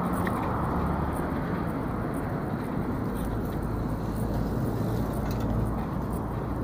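A steady low rumble of background noise, with faint light ticks above it.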